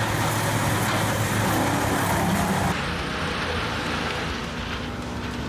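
Wood chipper running: a steady engine hum under a noisy churning. A little under three seconds in it changes abruptly to a duller, slightly quieter run.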